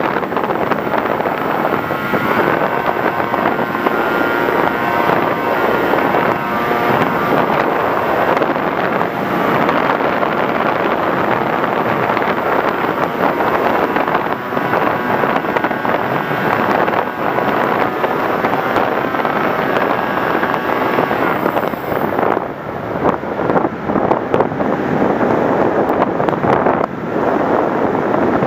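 Wind rush over a model aircraft's onboard camera microphone in flight, with a faint motor whine that rises and falls in pitch. The rush turns gustier and more uneven about three-quarters of the way through.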